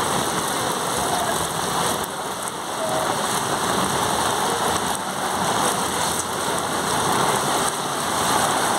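Heavy monsoon rain pouring steadily onto a flooded street and its standing water, a loud, even hiss of rain.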